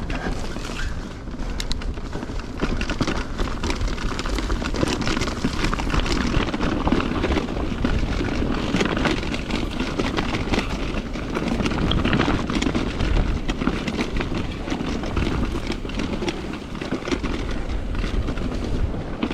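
Mountain bike riding over singletrack trail: tyres running over dirt with a steady patter of small knocks and rattles from the bike, under a heavy, steady rumble of wind buffeting the camera microphone.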